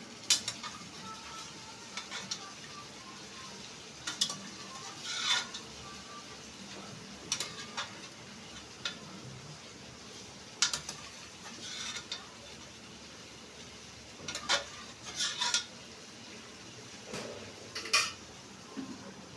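A metal spoon stirring food in a cooking pan, with sharp scrapes and clinks against the pan every second or few, over a low steady sizzle.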